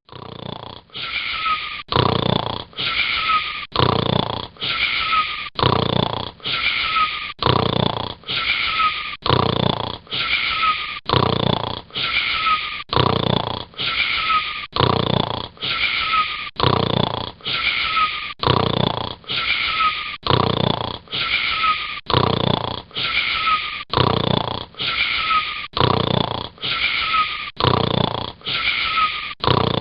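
Snoring in a fast, very even rhythm, about three breaths every two seconds, each with a wheezy, whistling note that falls slightly in pitch.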